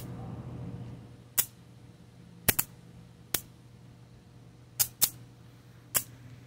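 Electric bug zapper's high-voltage grid snapping as insects hit it: about seven sharp zaps at irregular intervals, some in quick pairs, over a steady low hum.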